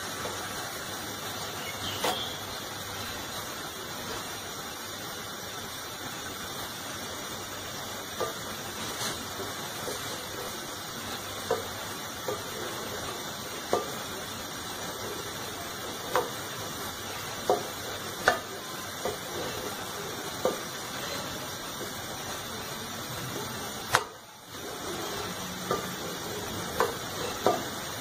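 A spoon stirring simmering milk kheer in an aluminium pot, knocking against the pot every second or two over a steady hiss.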